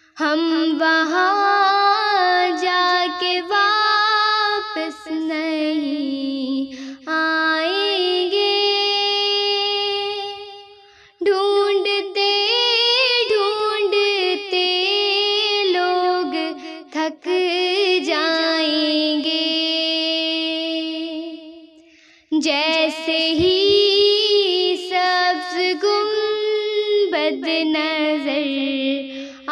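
A young girl singing a naat solo in long, wavering, held phrases. Her voice breaks off briefly about 11 and 22 seconds in, between phrases.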